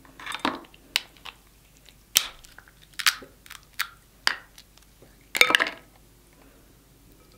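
Snow crab leg shells cracked and snapped apart by hand: a string of sharp cracks and crunches, the loudest and longest about five and a half seconds in.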